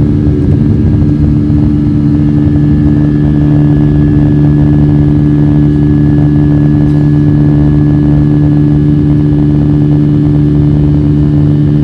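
Aircraft engines droning steadily at climb power just after takeoff, heard from inside the cabin: a loud, even hum with a few fixed tones that do not change pitch.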